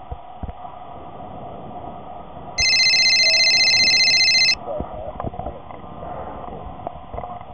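A cell phone ringing: a loud, high, rapidly trilling ring that starts about two and a half seconds in and lasts about two seconds, then stops.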